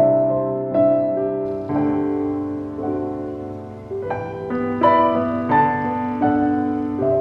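Background music: a slow, gentle piano piece with notes struck about once or twice a second.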